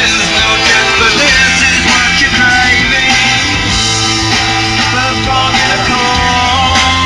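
Rock music with singing, guitars and a steady bass, played loud.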